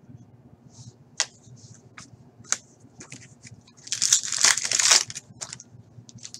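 Foil wrapper of a hockey card pack being torn open and crinkled: a loud crackling rustle about four seconds in lasting around a second. A few sharp clicks and snaps of cards being handled come before and after it.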